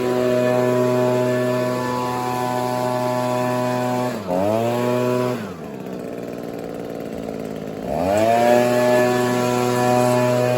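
Gas leaf blower's two-stroke engine running at full throttle. It dips briefly about four seconds in, then drops to idle for about two and a half seconds before revving back up to full speed.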